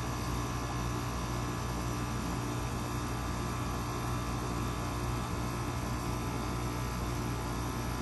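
Goodman PHKJ042 3.5-ton packaged heat pump running steadily in cool mode: an even hum from the compressor with the rush of the condenser fan.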